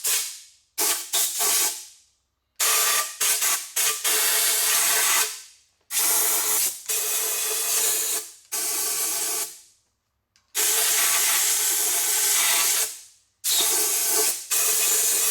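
Power sander run in about five bursts of one to three seconds, each starting suddenly and winding down, with short pauses between, sanding an exhaust manifold's mating face flat.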